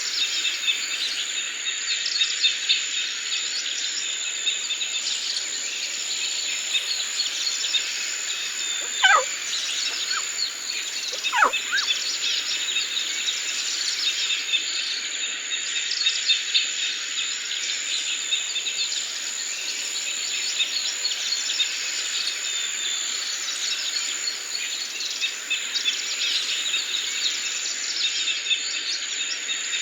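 Forest ambience: a dense chorus of many birds chirping over a steady high insect drone. Two louder calls fall sharply in pitch, about nine seconds in and again two seconds later.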